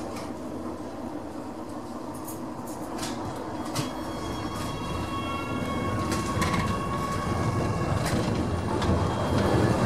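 AEG GT8N low-floor tram heard from inside as it picks up speed. A rolling rumble grows louder over a steady electric whine from the traction equipment, with a few sharp clicks as the wheels cross rail joints and points.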